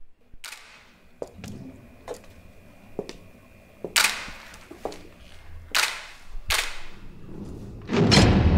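A series of sharp cracks or blows at uneven intervals, several quieter and three louder ones in the middle, then a loud low boom near the end that swells into a rumble.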